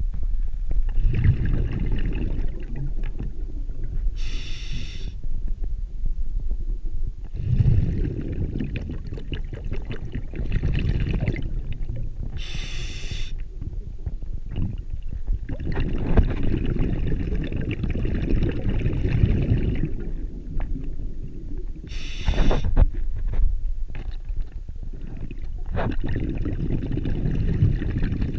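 A scuba diver breathing through a regulator, heard underwater: a short hiss of inhalation through the demand valve, then a long, low, bubbling exhalation, repeating about every eight to nine seconds, three breaths in all.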